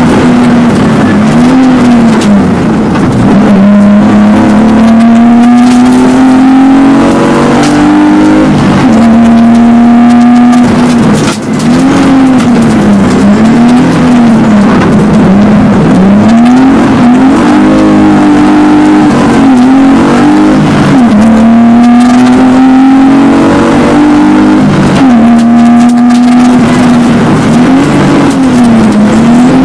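BMW rally car engine at full race pace, heard from inside the cockpit. The revs rise and fall over and over as the driver accelerates, lifts and changes gear through the bends, with a brief drop in loudness about a third of the way in.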